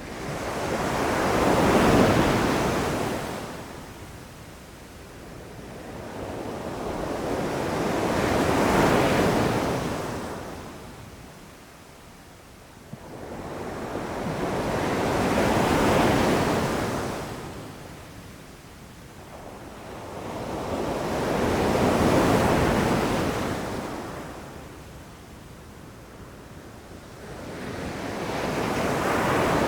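Ocean waves rushing in and drawing back: five slow swells of surf noise, each rising and falling over several seconds, about every six to seven seconds.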